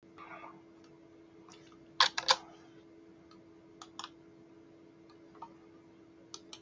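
Computer keyboard and mouse clicking: scattered single clicks, with a quick run of three louder clicks about two seconds in, over a faint steady hum.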